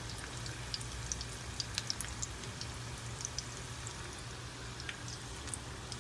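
Samosas deep-frying in a kadai of hot oil: a steady sizzle with scattered small crackles and pops, over a low steady hum.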